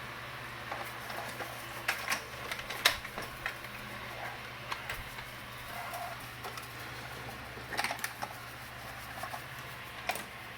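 Eufy RoboVac 25c robot vacuum running with a steady whir as it heads back to its dock, with scattered sharp clicks and taps throughout.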